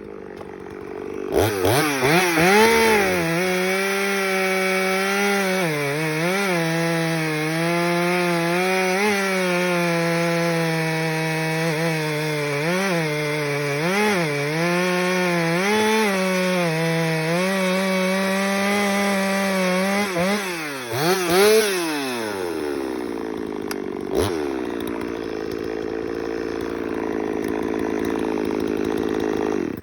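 Woods-ported Husqvarna 254XP two-stroke chainsaw with a 20-inch bar revving up about a second in and running at full throttle through a cut for about twenty seconds, its pitch dipping and recovering as it loads in the wood. Near the end it drops back to a steady idle.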